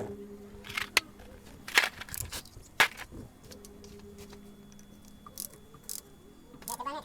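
Metal tools and engine parts clinking and scraping during hand repair work, with five sharp clanks over a faint steady hum.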